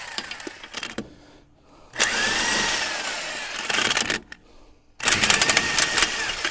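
Impact wrench spinning lug nuts off a truck wheel in two runs, one about two seconds in and one about five seconds in, its motor pitch rising then falling each time; the second run rattles with rapid hammering. A few light metallic clicks in the first second.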